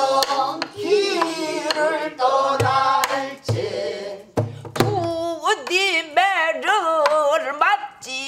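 A woman singing a pansori passage in jungjungmori rhythm with a wide vibrato, keeping time herself on a buk barrel drum. In the first half come deep strokes on the drumhead and sharp stick strikes; after that her voice goes on alone.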